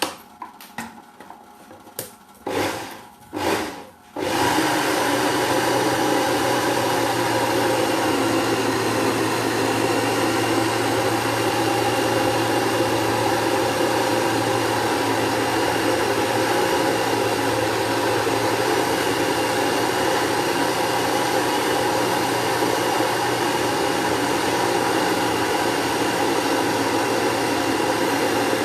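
Electric kitchen blender grinding turmeric with water: switched on in a few short bursts, then running steadily from about four seconds in.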